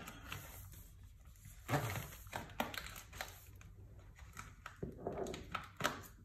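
Packaging being handled and torn open by hand: scattered rustles and crinkles, loudest a little under two seconds in and again near the end.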